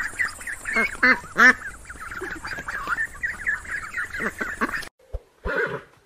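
A flock of white domestic geese calling over one another, many overlapping calls with a few louder honks about a second in. The calling cuts off suddenly near the end, and a short separate sound follows.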